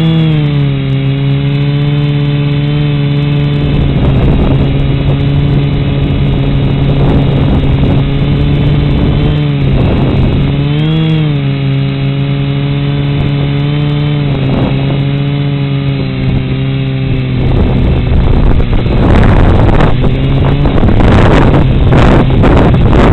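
A drone's motors and propellers humming steadily, heard from a camera mounted on the drone. The pitch dips and comes back briefly near the start and again about halfway through. In the last few seconds, wind gusts buffet the microphone over the hum.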